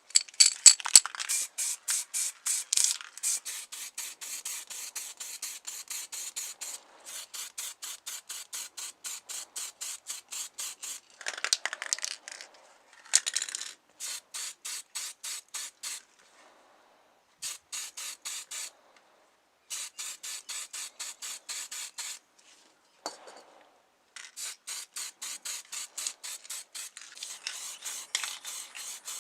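Quick back-and-forth rubbing strokes on a model car's body, about four a second, in runs broken by short pauses.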